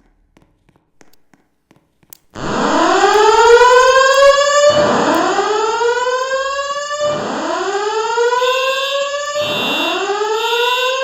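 Fire alarm voice evacuation system sounding its whoop tone between spoken evacuation messages: a loud rising sweep in pitch, repeated about every two and a half seconds. It starts about two seconds in, after a near-silent pause. From about eight seconds in, a second high-pitched tone beeps on and off alongside it.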